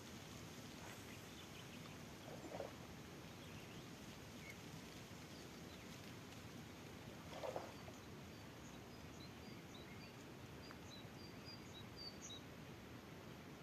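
Faint outdoor ambience with a steady low background hiss and two brief louder sounds, about two and a half and seven and a half seconds in. Through the second half, small birds chirp in many short high notes.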